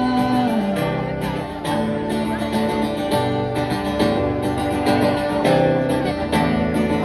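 Music: a pop song's passage led by strummed acoustic guitar over a steady beat, with no clear vocal line.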